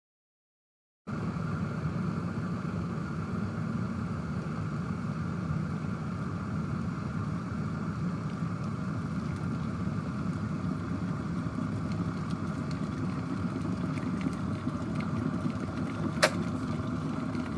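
Glass electric kettle boiling hard, a steady rumbling rush of water that starts about a second in, with one sharp click near the end.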